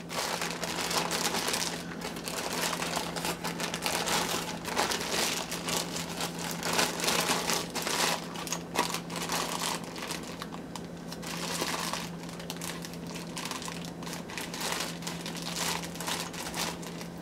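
Clear plastic bag wrapped around a model train locomotive crinkling and rustling continuously as it is handled, with a faint steady hum underneath.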